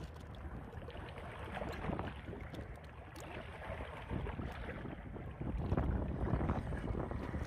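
Shallow seawater sloshing and splashing as a handful of razor clams is rubbed and rinsed, the shells clicking against each other, with wind rumbling on the microphone. The splashing grows louder a little over five seconds in, as the clams are lifted out dripping.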